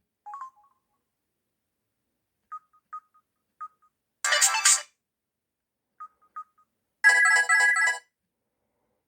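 Samsung SGH-F480 mobile phone playing ringtones through its loudspeaker: two short snatches of bright electronic melody, each under a second, about four and about seven seconds in. Short, single high beeps sound before and between them.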